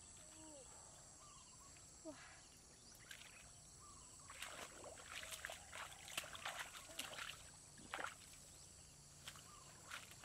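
Faint splashing and squelching of bare feet wading through shallow muddy water, with rustling and crackling of weeds and twigs. It becomes a run of soft splashes and crackles from about four seconds in. A steady high insect drone runs underneath.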